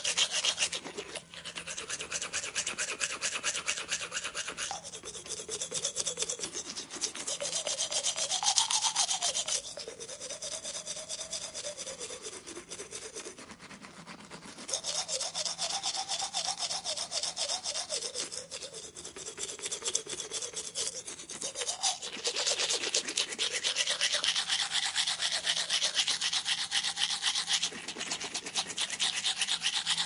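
Toothbrush scrubbing teeth with rapid back-and-forth strokes. The sound comes in passages of a few seconds, its tone shifting as the brush moves around the mouth.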